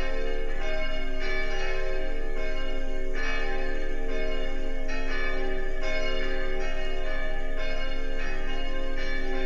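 Church bells ringing, struck one after another in quick succession, their tones sustaining and overlapping.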